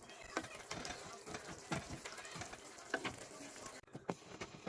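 Young choko (chayote) shoots sizzling as they are stir-fried in a pan, with irregular clicks and scrapes of stirring against the pan. The hiss drops away near the end.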